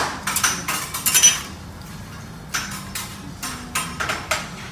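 Teppanyaki chef's metal spatula and utensils striking the steel griddle: a quick run of ringing metal clangs over the first second and a half, then several more spaced out.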